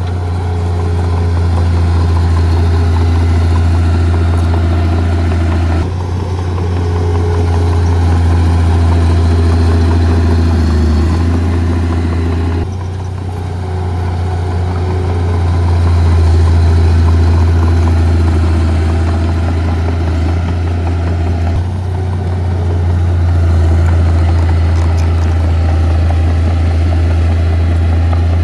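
Diesel engine of heavy earthmoving equipment running, a steady low drone that swells and eases with load, its note changing abruptly three times.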